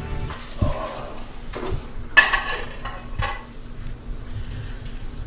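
Metal ice cream scoop scraping through a tub of ice cream and knocking against a drinking glass: a few separate scrapes and clinks, the sharpest about two seconds in.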